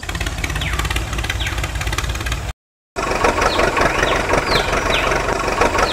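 Diesel engine idling steadily with a rapid clatter, briefly cut off for a moment about two and a half seconds in. Birds chirp faintly in the background.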